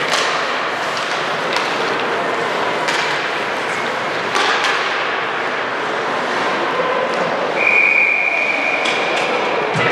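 Basketball thuds and squeaks echo in a gym over steady crowd and court noise, with several sharp knocks. Near the end a referee's whistle sounds once, a steady high blast of about a second and a half.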